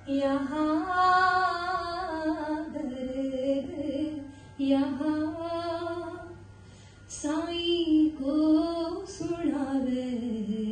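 A woman singing a devotional bhajan solo into a microphone, in three long phrases with short pauses for breath between them.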